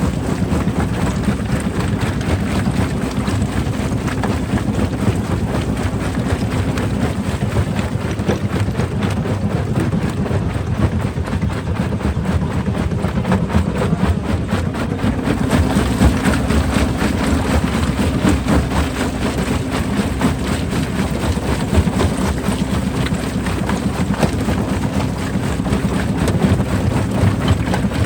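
Rock crusher running under load: a steady heavy machine drone with a continuous clatter of rock being broken, the low drone growing stronger about halfway through.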